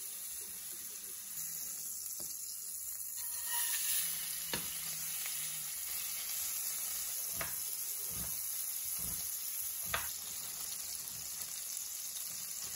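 Beef burger patty sizzling in hot oil in a nonstick frying pan, a steady hiss, with a few short knocks from about four seconds in as a slotted spatula works the patty against the pan.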